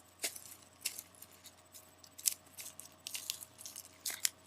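Bubble wrap and plastic packing being handled: a string of irregular crinkles and small clicks, the sharpest a little past two seconds in.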